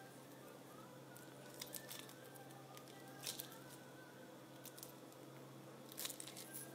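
Beaded stretch bracelets with metal charms clicking softly as they are handled, a few short clicks around two and three seconds in and a cluster near the end as they are pulled off the fingers. Under them, a low steady hum and faint background music.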